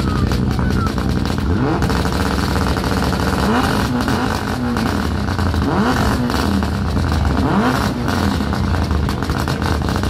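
Mitsubishi Lancer Evolution's turbocharged four-cylinder engine being revved in a series of short throttle blips, about four of them, rising and falling in pitch over a running idle.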